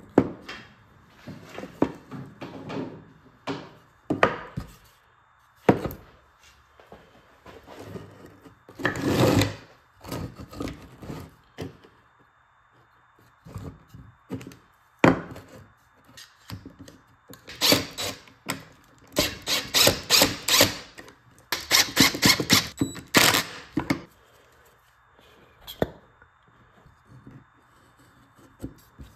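Pine wood pieces knocked and shuffled into place on a plastic workbench top, with separate sharp knocks and a rough scrape. Past the middle come several quick runs of ratcheting clicks as an Irwin quick-grip bar clamp is squeezed tight across the frame.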